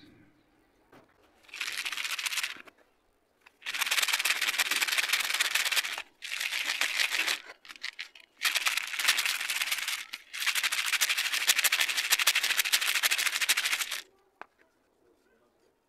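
Small broken slate-pencil and clay chunks rattling and grinding against each other in a plastic bowl as hands rake through them and shake the bowl. The sound comes in five bursts of dense, fine crackle with short pauses between them, then stops about two seconds before the end.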